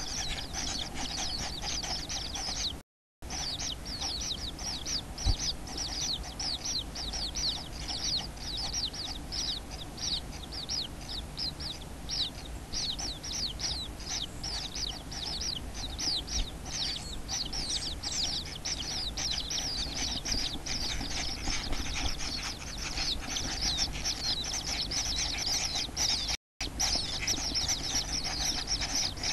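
Common kingfisher nestlings calling in the nest: a continuous rapid run of short, high-pitched, falling notes, several a second, over a steady low hum. The sound cuts out completely twice, briefly.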